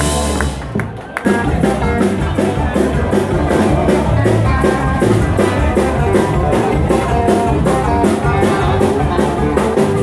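Live band playing dance music on electric guitar, bass guitar and drum kit, with a steady beat. The music dips briefly about a second in, then comes back in at full level.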